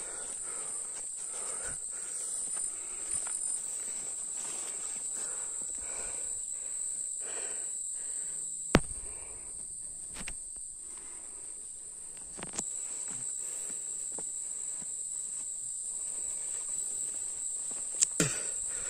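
Footsteps tramping through leaf litter and forest undergrowth, over a steady high-pitched insect drone. A few sharp snaps stand out: the loudest about nine seconds in, and two more near the end.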